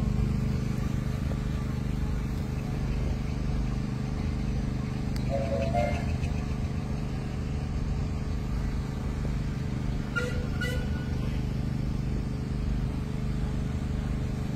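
Ford Model TT's four-cylinder engine running steadily with a low hum. Two brief higher-pitched sounds break in over it, about five and ten seconds in.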